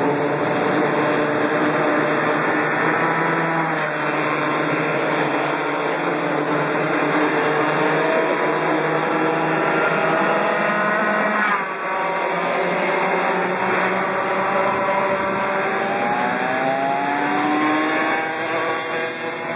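Several two-stroke racing kart engines buzzing around a circuit, their pitch rising and falling as the karts accelerate out of the corners and lift off.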